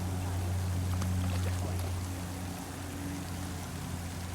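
Steady low motor hum, unchanging, over faint outdoor noise.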